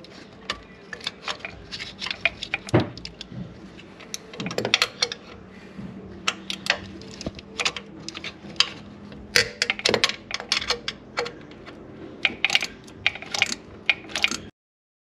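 Irregular metallic clicks and clinks of a wrench working a 10 mm nut and bolt loose under an ignition coil. The sound cuts off suddenly near the end.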